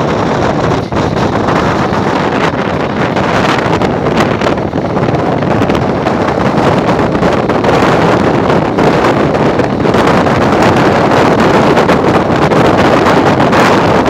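Moving passenger train heard from an open window: steady rushing wind buffeting the phone's microphone over the train's running noise on the track.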